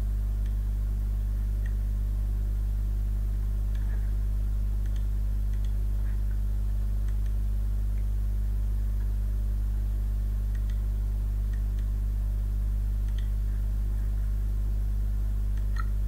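Steady low hum with a few faint mouse clicks now and then.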